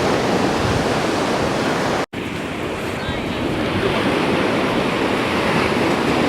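Ocean surf washing steadily, with wind buffeting the microphone. The sound cuts out completely for an instant about two seconds in.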